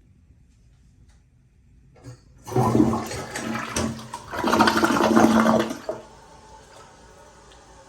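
Toto toilet flushing: a click about two seconds in, then a loud rush of water in two surges for about three and a half seconds, settling to a quieter steady hiss of water.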